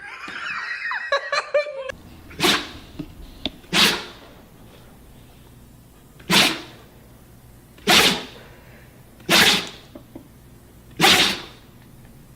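A dog sneezing repeatedly: six short, sharp sneezes, roughly one every second and a half.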